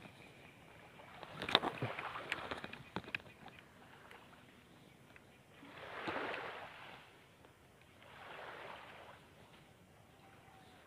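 Small waves washing in at the water's edge: two slow swells of water noise, about six and eight and a half seconds in, after a few faint clicks from handling the rod and reel in the first seconds.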